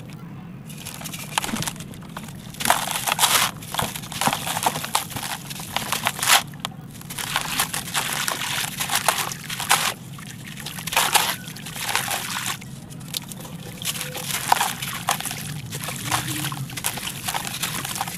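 Wet, gritty concrete chunks being crumbled and squeezed by hand over a basin of water: irregular crunching and crackling of grit, mixed with sloshing and dribbling water.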